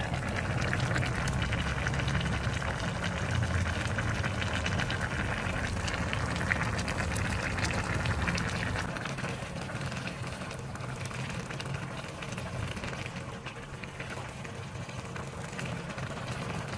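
A pot of chicken and sour bamboo shoot curry boiling hard with the lid off: a steady bubbling and crackling of simmering broth, with a low rumble that eases off about halfway through.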